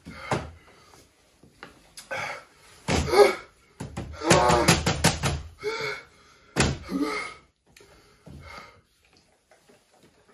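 A man's wordless pained groans and gasps from the chili heat, in short bursts, mixed with knocks and thumps. The loudest stretch comes about four to five seconds in.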